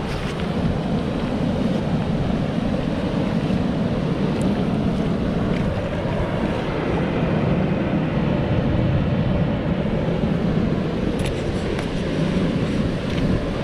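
Steady low rumble of wind on the microphone mixed with ocean surf washing over the rocky reef.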